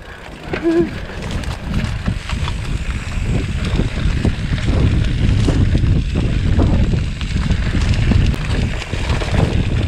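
Wind buffeting the microphone with a low, uneven rumble while riding a bicycle at speed, steady throughout; a brief voice sounds just under a second in.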